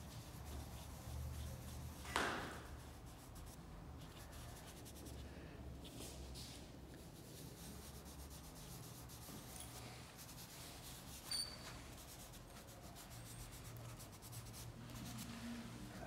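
Dry pastel stick faintly rubbing and scratching across drawing paper, blending white into the shading. A sudden louder sound comes about two seconds in.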